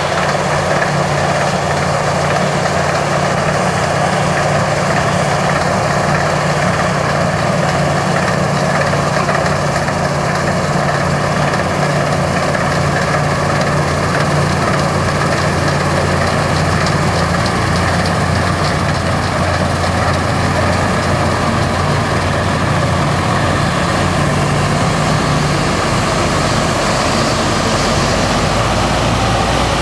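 Massey Ferguson 40 combine harvester's diesel engine running steadily at working speed while harvesting wheat, with the machine's steady mechanical din over it. A deeper rumble joins in for the last several seconds.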